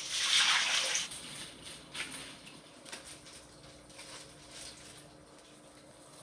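Water splashing in a home aquarium for about a second at the start, followed by a few faint short splashes or drips.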